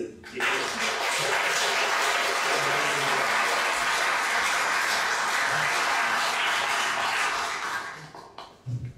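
Audience applauding, starting about half a second in and dying away about eight seconds in.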